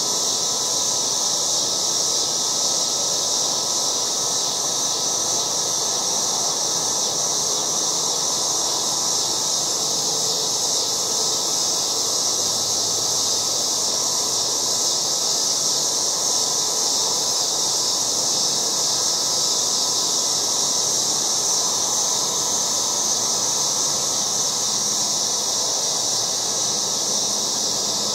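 Cicadas in chorus, a loud, steady high-pitched buzz that holds without a break.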